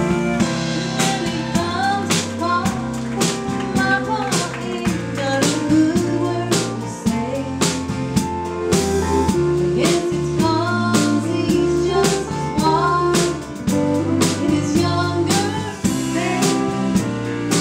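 Live country band with drum kit and guitars: a pedal steel guitar plays over the beat, and a woman sings lead over the band.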